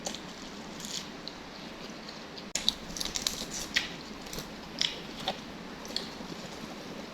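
Close-up eating sounds: a person chewing, with scattered wet smacks and short clicks, the sharpest about two and a half seconds in.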